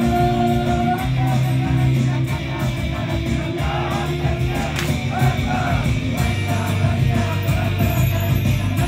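A Japanese idol group performing a rock-style pop song live: loud band music with female voices singing.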